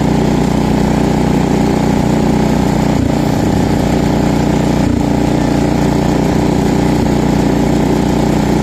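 Cub Cadet 126 garden tractor's 12-horsepower single-cylinder engine running steadily. The carburetor needs a rebuild, which the owner expects will make it run better.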